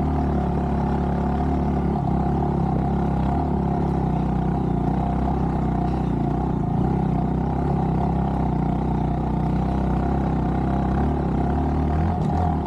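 Honda Monkey 125's single-cylinder four-stroke engine running under load at a steady pitch as the bike climbs a dirt hill trail.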